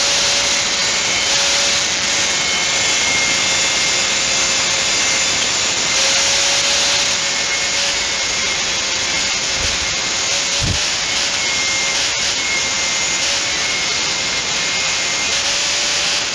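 Power grinder sharpening a steel lawn mower blade: a steady motor whine under the rasping hiss of the wheel on the steel, with a few small knocks about halfway through.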